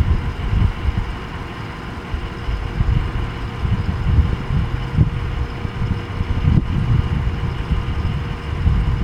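Wind buffeting the microphone in uneven low gusts, over a faint steady hum.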